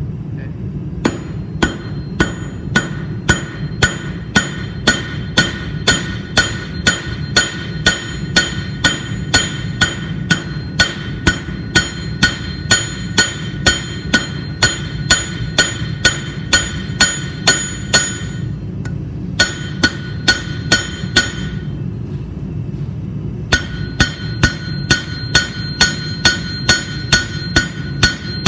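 Hand hammer striking a red-hot mild steel bar on an anvil, flattening the tip into a leaf shape: a steady run of blows at about two or three a second, each with a bright metallic ring, with two brief pauses in the second half.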